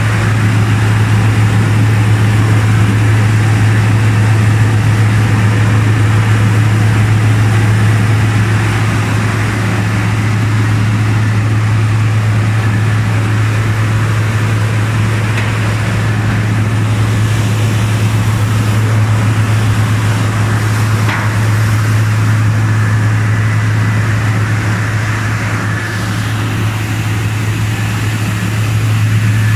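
Rice milling machine running steadily under load: a loud, even low hum from its drive and rollers with a rushing hiss over it.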